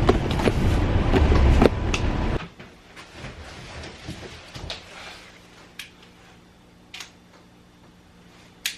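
City bus running, heard from inside: a steady low rumble that cuts off abruptly about two and a half seconds in. Only faint background with a few soft clicks follows.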